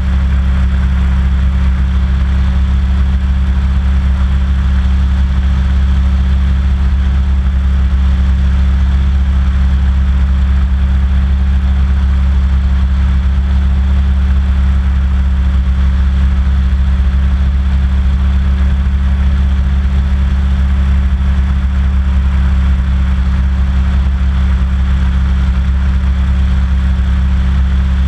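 Hovercraft running at a steady cruise over water: its engine and fans make a loud, constant low drone with an even rushing noise above it, unchanging in pitch or pace.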